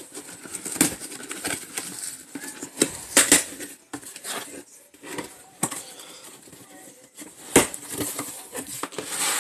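Cardboard shipping box being opened by hand: flaps rubbing, scraping and rustling, with several sharp knocks and clicks of cardboard, the loudest about three seconds in and again past seven seconds.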